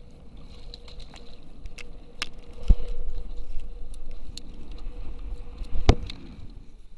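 Knocks and clatter on a plastic fishing kayak's hull and deck as a small fish is swung aboard on the line and handled, with two sharp thumps, about three and six seconds in, over scattered clicks of tackle and a low rumble of wind and water.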